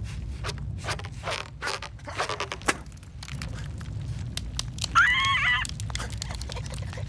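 Cartoon foley: a run of short scraping and clicking noises over a steady low rumble, with a loud, brief, wavering cartoon-character squawk about five seconds in.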